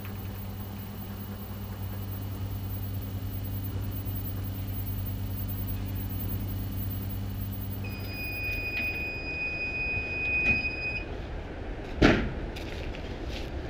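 Steady low hum of an elevator cabin in motion, which stops about eight seconds in. A long high electronic beep lasts about three seconds, followed by a single heavy clunk of the elevator door.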